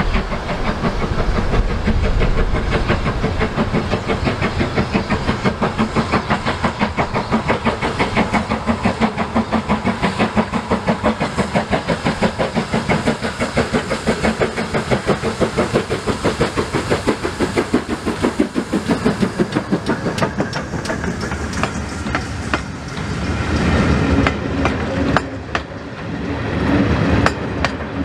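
GWR 4575 Class prairie tank steam locomotive working past at speed with a fast, even exhaust beat of about five a second. Its coaches then roll by with a rumble and irregular clicks from the wheels over the rail joints near the end.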